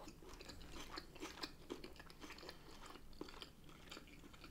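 A person chewing food close to the microphone: faint wet mouth sounds with many small, irregular clicks.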